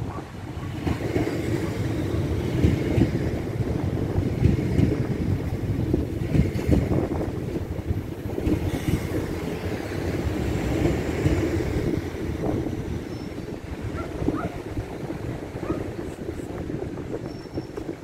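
Strong gusting wind off the sea buffeting the microphone: a loud, low rumble that swells and dips with the gusts.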